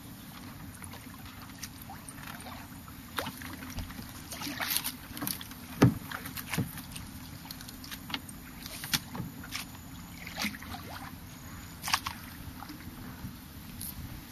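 Kayak being paddled through still water: soft paddle dips and drips, with a scattering of sharp knocks and clicks, the loudest about six seconds in.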